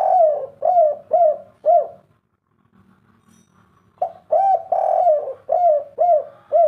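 Spotted dove (tekukur) cooing its 'kuk 3' song: a phrase of short, arched coos that ends about two seconds in, then a second phrase of five or six coos starting about four seconds in.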